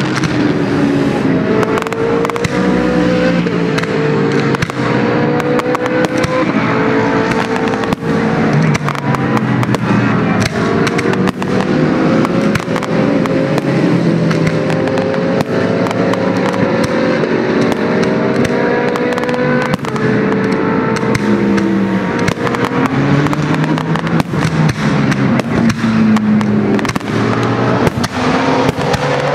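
GT race cars' engines accelerating past, their pitch climbing and stepping down at each gear change, one car after another. A dense run of fireworks bangs and crackles goes on throughout.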